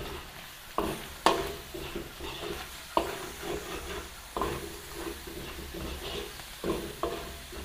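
A utensil stirring ground pork and shredded chicken frying in a pan, over a steady sizzle. About six sharp knocks against the pan come at uneven intervals, each with a brief ring.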